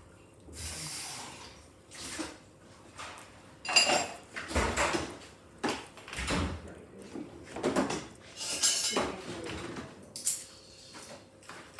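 Dishes and cutlery clattering and knocking irregularly as they are rinsed and stacked into a dishwasher, with a sharp knock about four seconds in.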